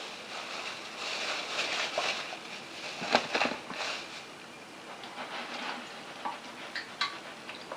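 Sluice concentrates of sand and gravel being worked through a mesh sieve: an uneven gritty rattle and hiss in bursts, with a few sharp clicks of stones, loudest about three seconds in.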